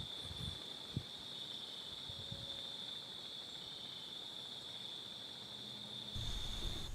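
Faint, steady high-pitched insect chorus trilling at the edge of a field, with a few soft low knocks and a low rumble coming in near the end.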